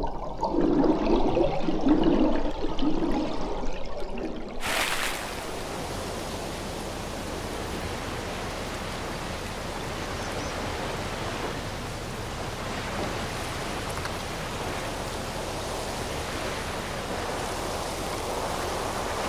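Muffled underwater sound for the first few seconds, then a sudden cut to a steady wash of sea surf.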